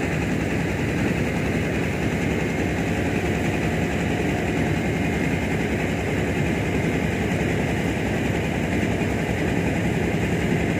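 An engine running steadily at an even speed, with a fast, fine low pulsing.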